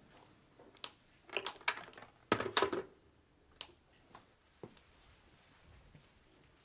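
Short clusters of clicks and clatter from objects being handled, loudest a little after two seconds in, then a few single light clicks.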